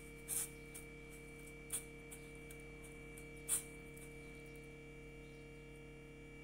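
Three short, crisp rustles of dry breadcrumbs as a hand presses squid rings into the crumb coating, the last one the loudest, over a steady electrical hum.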